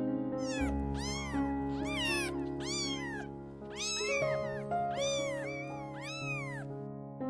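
A cat giving a quick run of short meows, each rising then falling in pitch, over soft piano background music.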